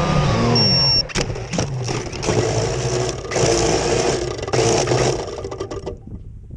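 Quadcopter drone's motors and propellers whirring, their pitch shifting, with wind rushing over the onboard camera's microphone in choppy gusts. The sound drops sharply to a faint low rumble near the end.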